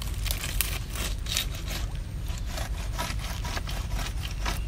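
Irregular scraping and rubbing on wood: a quick, uneven run of short rasping strokes, as when a mangrove tree hollow is worked open to flush out rats.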